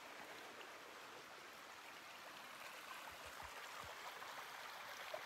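Faint, steady rushing of water from a small waterfall on a creek.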